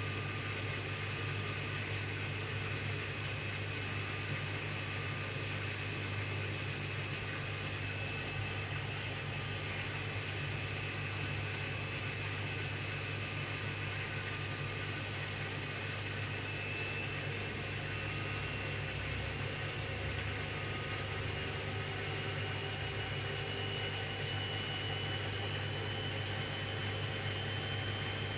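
Hoover washing machine in an intermediate spin on a cotton 30° wash: the drum motor's whine climbs slowly and steadily in pitch over a constant hum as the drum gathers speed.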